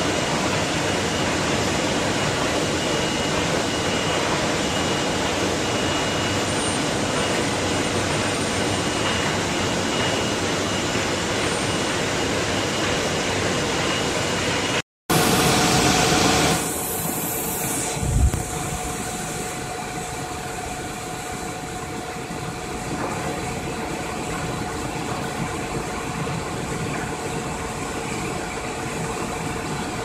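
Cage-type cable laying-up machine running, its rotating bobbin cage making a steady, dense mechanical noise with a faint steady whine. Halfway through the sound cuts out briefly, followed by a short loud rush of noise, a thump, and then a rigid stranding machine running a little quieter with a steady hum.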